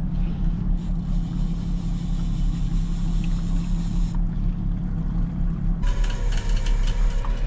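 A boat's 250 hp outboard motor running steadily at low speed, a constant drone. Near the end the sound changes to a higher steady tone with faint ticking.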